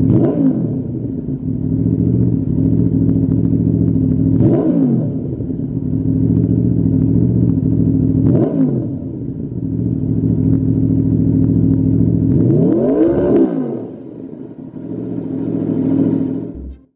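Aprilia RSV4's V4 engine idling through a Lextek XP8C aftermarket silencer, blipped five times, each rev climbing and falling back to idle. The fourth rev is the longest and highest.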